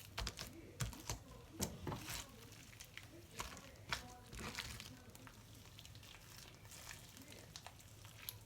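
Sticky homemade glue slime being worked by hand: faint wet clicks and crackles, busiest in the first few seconds, thinning out later.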